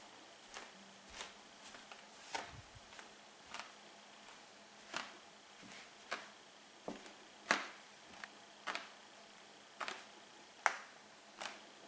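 Hardwood floor crackling under sock-footed steps: a sharp crack or crunch with nearly every step as the foot lifts off the boards, about one a second, two of them a little past halfway louder than the rest.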